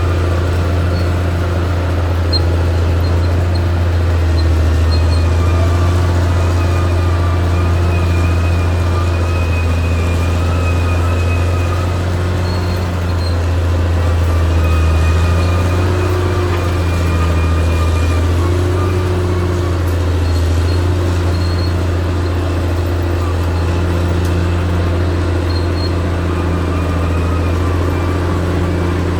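Diesel engine of a Caterpillar D6R XL bulldozer running steadily with a deep, even drone.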